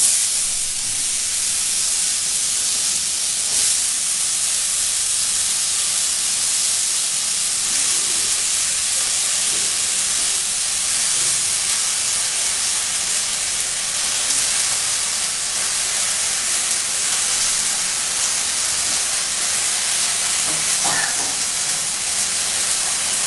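A steady, loud hiss that starts abruptly and holds level throughout, with no clear source.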